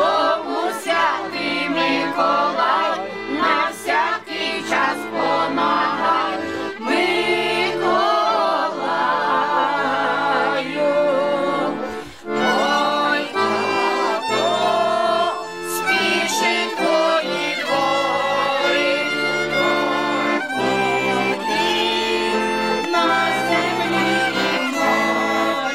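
Accordion playing folk music while a group sings along, with a violin heard near the end. The music dips briefly about twelve seconds in.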